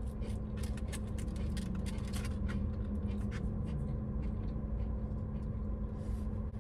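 Eating sounds: a plastic takeout container crackling and clicking as food is picked out of it, with chewing. The clicks come thick in the first few seconds and thin out after. Underneath runs the steady low hum of the car cabin.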